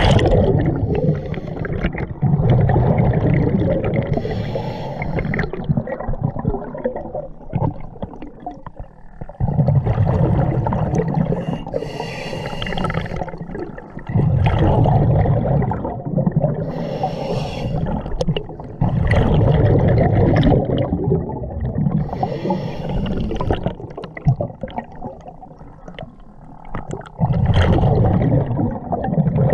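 Scuba diver breathing through a regulator underwater: about six slow breaths, each exhale a loud, low burst of bubbles lasting a second or more, with a fainter hiss of inhaling between.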